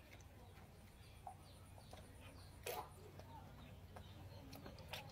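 Near silence: a faint background hum with faint bird calls and a few soft clicks. There is one brief louder noise a little past halfway.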